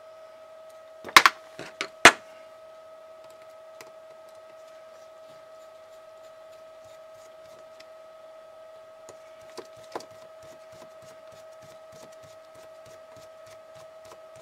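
Small screwdriver clicking and ticking against a model locomotive's electric motor as its screws are driven in: two sharp clicks about a second and two seconds in, then a run of small light ticks in the second half, over a steady high hum.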